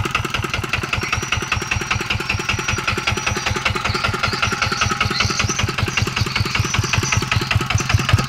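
Yanmar S65 single-cylinder diesel engine running steadily, its firing beats even and regular: the engine runs smooth and solid.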